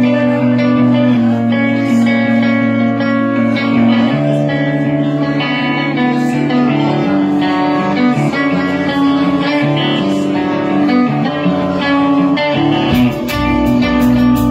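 A band playing a rock song's intro: strummed guitar chords carry the opening, and about thirteen seconds in the drums and bass guitar come in with steady cymbal hits.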